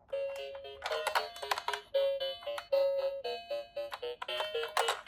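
A simple electronic melody of short beeping notes stepping up and down, starting suddenly, with several clicks over it.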